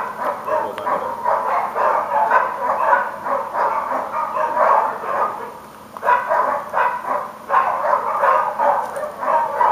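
Dog barking rapidly and repeatedly, with a short lull about five and a half seconds in.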